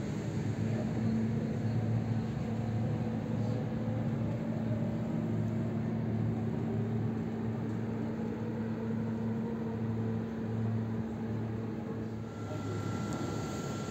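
EG2Tv 'Ivolga' electric train at the platform, its electrical equipment giving a steady hum with a pulsing lower hum beneath and a faint whine that slowly falls in pitch. About twelve seconds in, the hum gives way to a higher steady tone.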